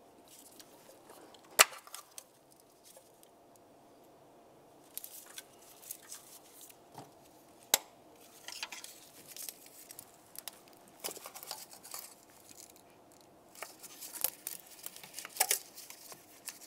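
Small plastic clicks and handling noises as a pick pries up the red locking tabs and gloved fingers unplug fuel injector electrical connectors. Two sharp clicks stand out, one about a second and a half in and one about halfway through.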